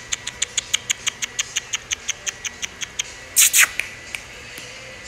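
Rapid, even clicking, about six clicks a second: a person clicking their tongue to call a puppy over. A short hiss-like burst cuts in about three and a half seconds in.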